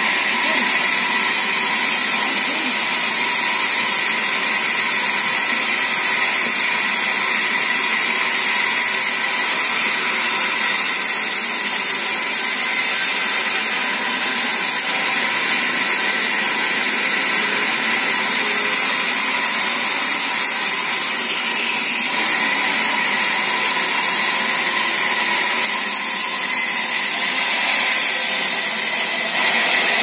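Sawmill band saw running steadily, its blade cutting through wooden planks pushed along its table by hand.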